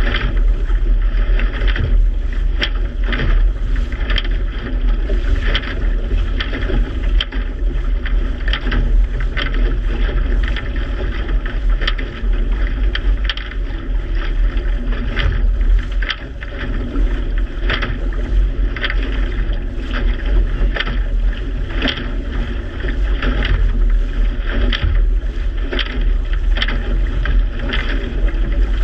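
A small boat moving through choppy water, with water rushing and slapping irregularly against the hull over a steady low rumble and wind buffeting the microphone.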